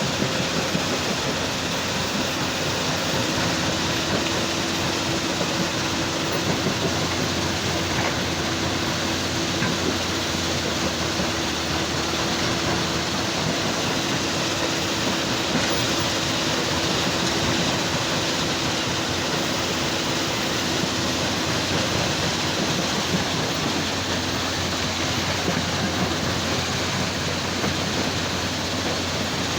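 Heavy machinery at a stone crusher running steadily: a loud, even, dense rumble of engines and crushing, with a faint steady hum that drops out about three-quarters of the way through.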